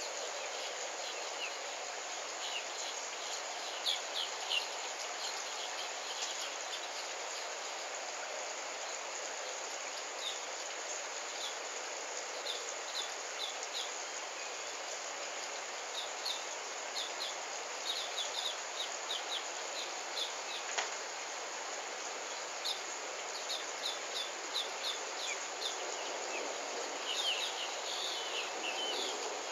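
Outdoor ambience: a steady hiss with scattered runs of short, high chirps, several quick notes at a time.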